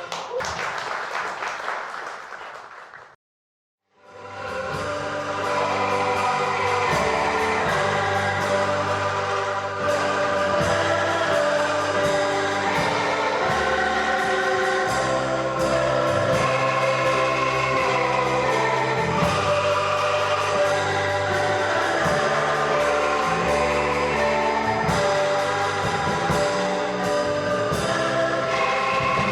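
Angklung ensemble music: chords of shaken bamboo tubes. The first passage breaks off about three seconds in, and after about a second of silence the music starts again and carries on.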